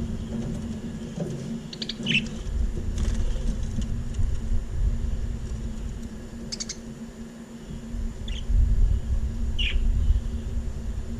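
Budgerigars giving a few short, scattered chirps, over a steady low hum and a low rumble that is loudest near the end.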